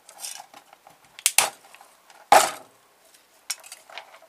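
Hard plastic parts of a hair straightener's housing snapping and clicking as they are pried apart by hand. There are two sharp snaps close together a little over a second in and a louder crack just past two seconds, with lighter clicks and handling noise between.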